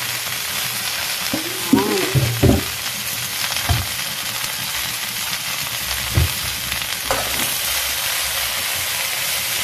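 Chopped winged beans sizzling steadily as they stir-fry in a hot wok. A metal spatula knocks and scrapes against the pan a few times as they are turned.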